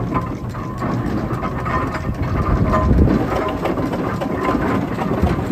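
Early-1900s Ruston Proctor 4 hp single-cylinder steam traction engine running, with an even, rhythmic beat.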